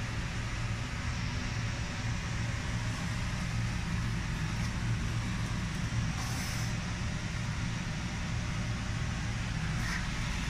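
Steady low hum of running machinery, with a short hiss of air about six seconds in.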